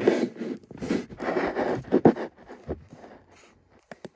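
Rustling of paper book pages being handled and flipped through, dying down after about two seconds, with a few light clicks near the end.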